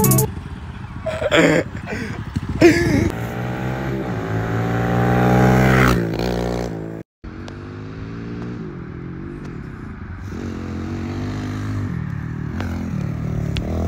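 Kawasaki KLX110R L pit bike's small single-cylinder four-stroke engine running on the throttle, its pitch climbing as it accelerates, with a few sharp knocks in the first three seconds. The sound breaks off for an instant about seven seconds in, then the engine comes back, rising and easing off.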